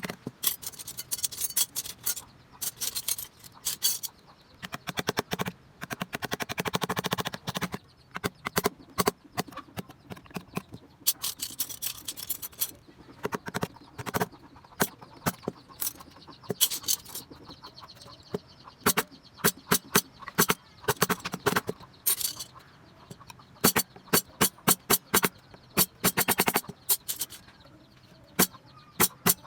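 Hand carving tools working rosewood: bursts of rapid, sharp taps and clicks, tool striking and cutting into hardwood, with short pauses between the bursts.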